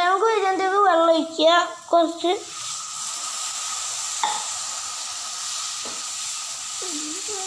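A voice speaks briefly at first. Then onion masala sizzles steadily in a hot frying pan while a wooden spatula stirs it, just after water has gone into the pan. The voice comes back near the end.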